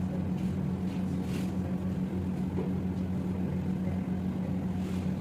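Steady low mechanical hum, with a few faint soft ticks or rustles over it.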